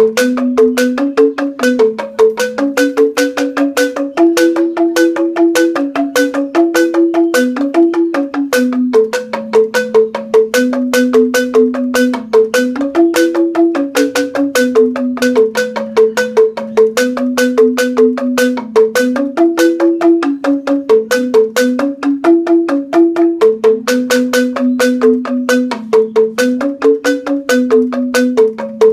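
Rindik, a Balinese xylophone of tuned bamboo tubes, played with two mallets in a joged bungbung tune: a steady, rapid stream of struck bamboo notes, a low melody stepping among a few pitches under a quicker, higher repeating figure.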